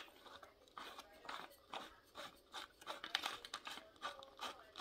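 Faint, irregular small clicks and scrapes of hands fitting a bolt and nut through a metal headlight bucket.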